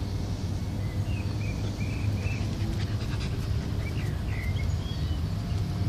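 A beagle and a dachshund puppy panting and snuffling close to the microphone as they play, over a steady low rumble. A few faint short high squeaks come in about a second in and again around four seconds.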